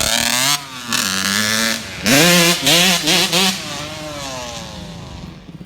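Snowmobile engine revving hard in several throttle blips, its pitch swinging up and down, then dying down and growing quieter over the last couple of seconds.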